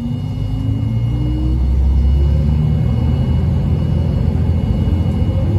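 Diesel railcar's engine running up as the train accelerates from a standstill: a low rumble that climbs in pitch and grows louder over the first couple of seconds, then holds steady.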